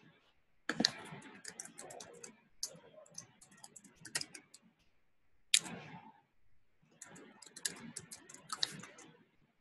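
Computer keyboard typing in three quick bursts of keystrokes, with one louder click about five and a half seconds in.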